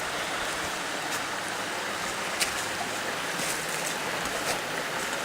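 Steady rush of a waterfall running high after heavy rain, with a few faint clicks over it.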